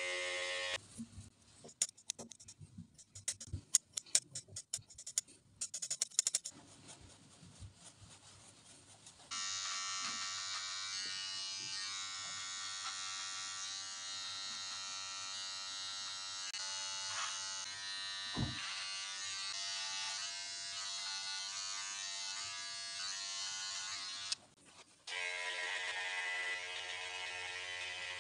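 Electric beard trimmer and hair clippers running with a steady buzz while cutting beard and hair. About a second in the buzz stops for several seconds of scattered clicks and taps, then runs steadily again with a single thump partway through and a brief cut-out near the end.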